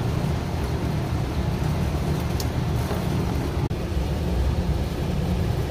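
Golf cart running with a steady low rumble.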